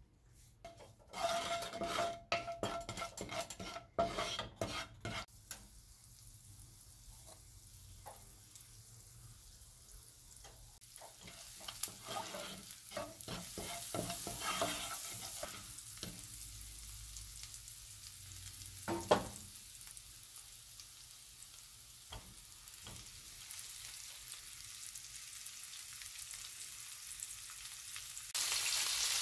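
Chopped garlic sizzling in olive oil in a nonstick frying pan while a spatula stirs and scrapes it, with bursts of scraping in the first few seconds and again around the middle. Near the end the sizzle jumps suddenly louder as a cauliflower steak goes into the hot oil.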